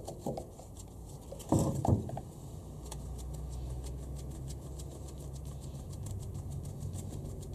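Pozidriv screwdriver tightening the rotor screw on a Honda B18 distributor: light metal clicks and scrapes, with a louder clatter of handling about a second and a half in. A low steady hum sets in about three seconds in.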